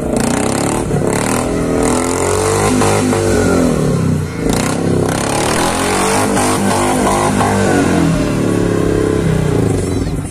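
Small pickup truck's engine revved hard, its pitch climbing and falling again and again as the truck is drifted on grass.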